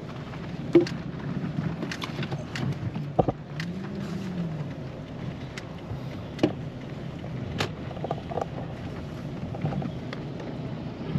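Inside a Toyota passenger car driving slowly: a steady low engine and road hum, with scattered sharp clicks and knocks from the cabin, the loudest about a second in.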